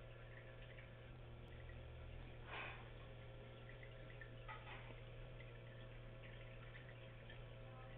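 Near silence: a steady low hum, with two faint, brief noises about two and a half and four and a half seconds in.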